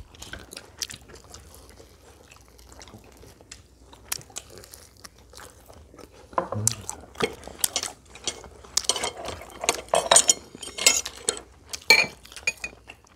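Table eating sounds: crispy fried chicken being torn and chewed by hand, with small clinks of chopsticks against plates. Sparse for the first several seconds, then a quick run of crackles and clicks near the end.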